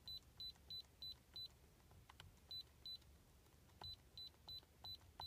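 Short, high electronic key beeps from an iCarsoft i908 hand-held diagnostic scanner, one for each button press while scrolling down its module list: a run of five at about three a second, a pause, two more, then another run of five.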